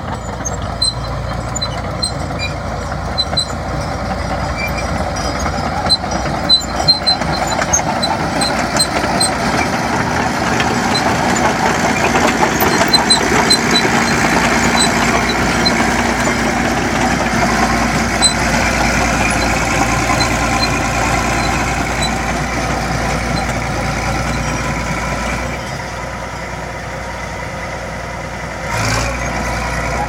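Crawler bulldozer's diesel engine running under load as it pushes soil, with a few sharp knocks about six to seven seconds in. The sound swells louder through the middle and drops off about four seconds before the end.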